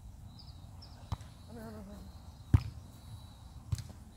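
Volleyball being struck three times in quick succession during a rally, sharp slaps of hands and forearms on the ball, the middle hit the loudest.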